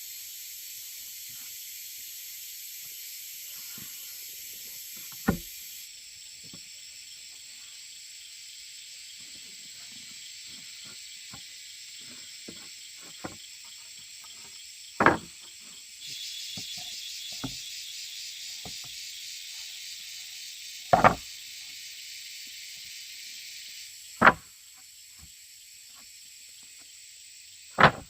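Five loud, sharp knocks a few seconds apart, over a steady high-pitched hiss.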